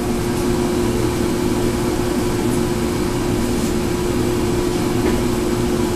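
A machine motor hums steadily at one pitch, switching on at the start and cutting off just before the end.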